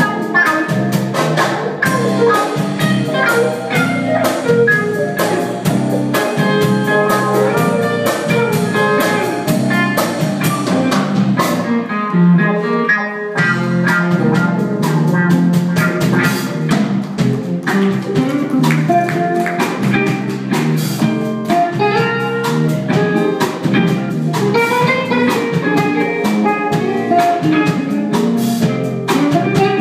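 Live blues band playing, with electric guitars, saxophone, keyboard and drum kit. The drums and bass drop out for a brief break about twelve seconds in, then the band comes back in.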